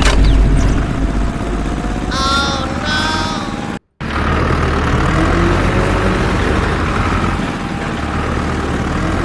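Vehicle engine running steadily with a low rumble, cut off for a moment by a brief dropout just before the middle. Two short chirping calls sound over it a couple of seconds in.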